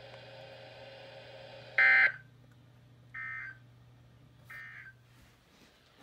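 NOAA weather radio speaker sending the three short EAS end-of-message data bursts that close a Required Weekly Test, about a second apart. The first burst is loud and the second and third much fainter, over a faint low hum that stops near the end.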